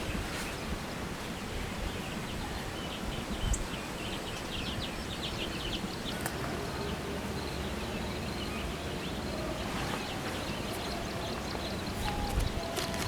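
Steady outdoor background noise with a few faint high chirps, like birds, and scattered light clicks.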